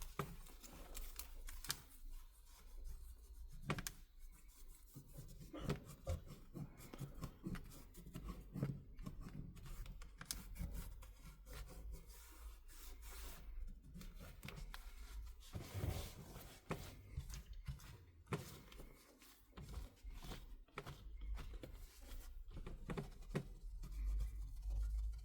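Old adhesive being scraped and rubbed off the frame of a Samsung Galaxy Tab A T580 with a hand tool: faint, irregular scratching with small clicks and taps throughout.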